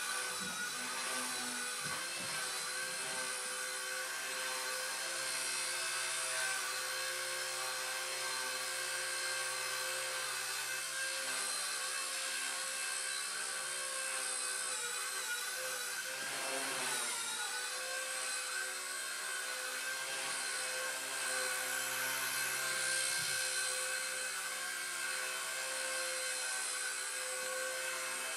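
Blade mCP X micro electric RC helicopter's motors and spinning rotors giving a steady high whine, with a brief dip and recovery in pitch just past the middle.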